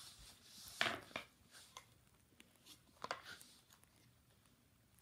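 A few scattered light knocks and taps on a hardwood floor, the two sharpest about a second in and about three seconds in.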